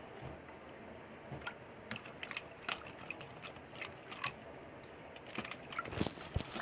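Irregular light clicks and taps of kitchen handling, with a few louder knocks near the end.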